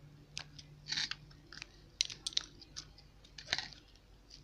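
Borax-activated glue slime being squeezed and kneaded by hand, giving irregular short sticky crackles and squelches.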